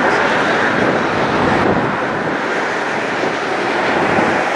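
Engine noise of an Airbus A319 twinjet on final approach for landing, a steady, even jet rush with no distinct tones.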